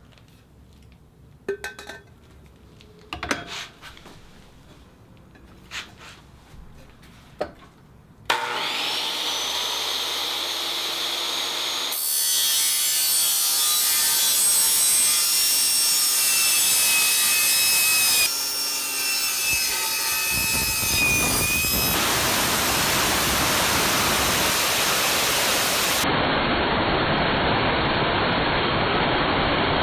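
A few light clicks and knocks, then about eight seconds in a power tool spins up with a rising whine and cuts into a stainless steel vacuum tumbler: a loud, steady, harsh cutting noise whose pitch dips as the blade loads.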